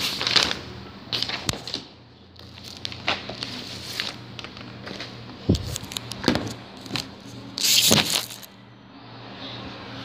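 Handling noise on the recording device's microphone as it is picked up and repositioned: irregular clicks, bumps and rustles, with the loudest burst of rubbing and knocks about eight seconds in, over a steady low hum.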